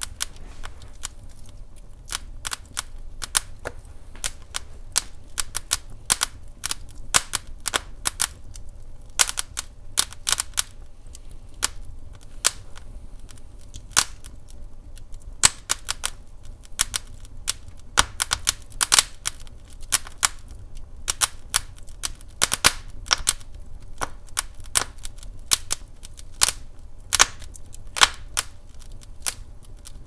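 Douglas fir logs burning in an open fireplace, crackling with frequent, irregular sharp pops of varying loudness over a low steady rumble.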